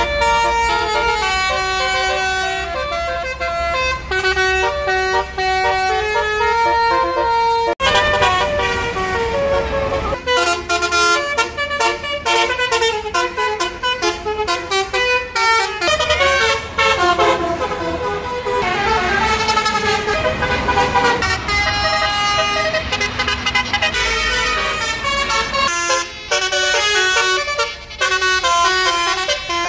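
Indonesian coaches' Basuri multi-tone 'telolet' horns, with trumpets mounted on the roof, playing melodies of stepped notes in chords, with bus engine rumble underneath. The tune changes abruptly about 8 and 10 seconds in.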